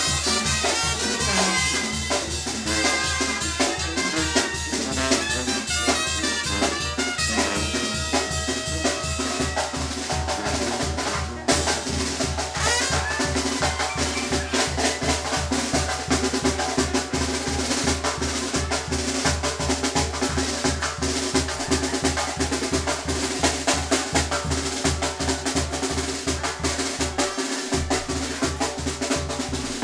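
Live Mexican brass band (banda) playing dance music: tuba, brass horns, snare drum and bass drum keeping a steady beat, with a very brief drop about eleven seconds in.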